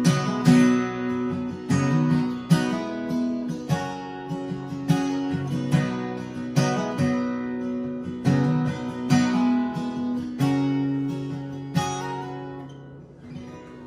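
Background music: acoustic guitar strumming chords with no singing, fading out near the end.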